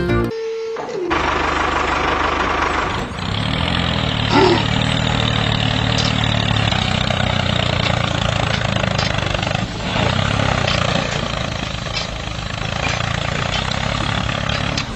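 A tractor engine running steadily with a low throb, starting about a second in, with a few faint clicks over it.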